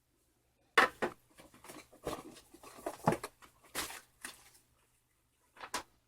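Packaging and contents being handled: a run of sharp clicks and rustles lasting about four seconds, then two more near the end.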